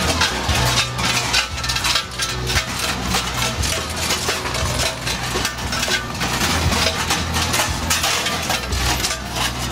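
Large Krampus bells worn by the parade runners clanging and jangling without pause, a dense clatter of metallic strokes over a low steady drone.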